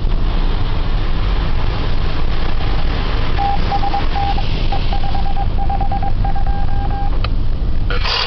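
Automatic car wash sprayers blasting water and soap onto a minivan's windshield, heard from inside the cabin as a loud, steady spray hiss over a low rumble. About three seconds in, a run of short electronic beeps starts and goes on for about four seconds.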